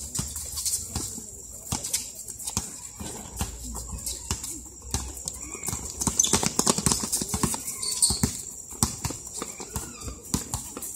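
Basketball bouncing on a concrete court, a run of uneven knocks mixed with players' running footsteps, busier about halfway through.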